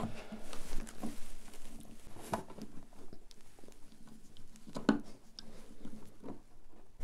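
Screwdriver working the screws of a car's licence-plate lamp: faint, scattered small clicks and scrapes of metal on metal and plastic.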